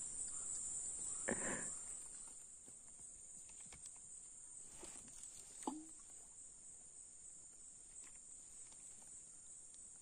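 Steady high-pitched drone of insects in the forest, with a few faint rustles and clicks of fishing tackle being handled about a second and a half in and again around five seconds in.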